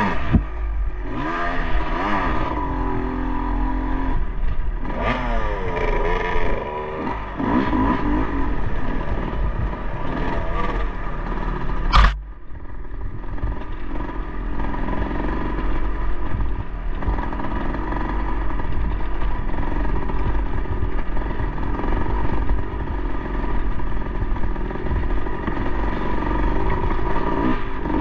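Dirt bike engine revving up and down at low speed over rough trail, with the chassis and suspension clattering. A single sharp knock about twelve seconds in, then the engine runs more steadily.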